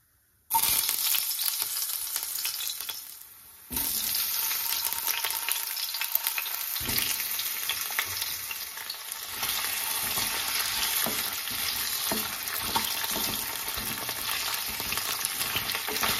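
Cumin seeds and thin potato slices frying in hot oil in a non-stick kadai. The sizzle starts abruptly about half a second in, dips briefly around three seconds, then comes back loud. In the later part a wooden spatula scrapes and knocks as the potatoes are stirred.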